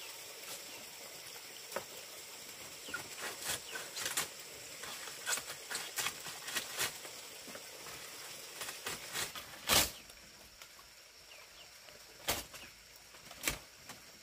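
Dry leaf thatch rustling and crackling as it is handled and tucked onto a bamboo roof frame, with a string of short sharp snaps and knocks, the loudest about ten seconds in.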